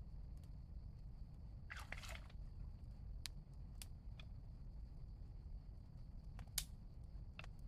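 Scattered small clicks and a brief crunching rustle about two seconds in, with one sharper click near the end, over a steady low rumble.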